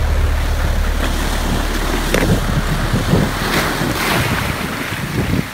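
Surf breaking and foam washing over shore rocks, surging louder about four seconds in, with wind buffeting the microphone and rumbling, most heavily in the first two seconds.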